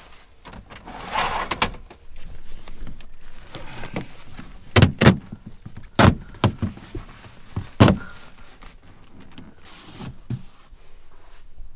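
A quilted silver thermal fabric being handled and pressed into place: rustling and crinkling, with several sharp knocks against the van's interior panels, the loudest a pair about five seconds in and single ones near six and eight seconds.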